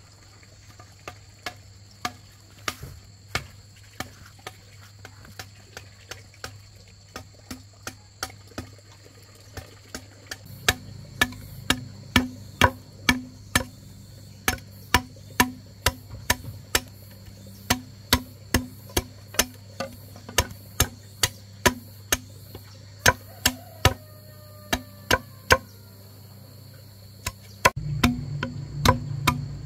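A hand tool strikes over and over with sharp knocks, each with a short ring. The strikes are sparse at first, then about two a second. A rooster crows briefly late on, and a low steady drone comes in near the end.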